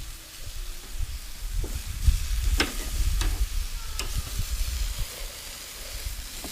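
Spoon stirring and scraping in a pot of baked beans, with several short sharp scrapes against the pot over a low rumble.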